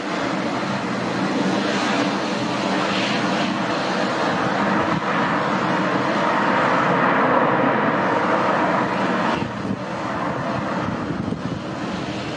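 Jet engines of a Boeing 737 MAX 8 (CFM LEAP-1B turbofans) running past, a steady roar that grows louder and peaks about seven to nine seconds in, then drops off suddenly.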